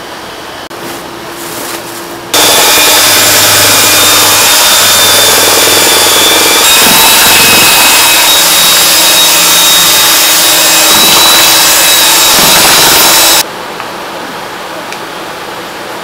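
Handheld electric paddle mixer churning a large pot of thick starch batter for ba wan skins. The motor runs loud and steady with a high whine, starting abruptly about two seconds in and cutting off about eleven seconds later.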